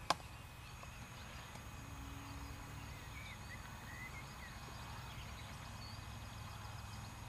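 Quiet lakeside ambience: a steady low wind rumble on the microphone with a few faint bird chirps in the middle, after a single sharp click at the very start.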